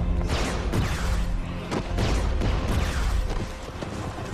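Action film score over a steady low drone, cut by a quick run of fight sound effects: whooshes and hits, about six in the first three seconds. It eases off a little near the end.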